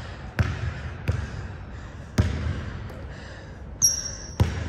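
A basketball being dribbled on a gym court, about five bounces at an uneven pace, with a brief high squeak of sneakers on the floor near the end.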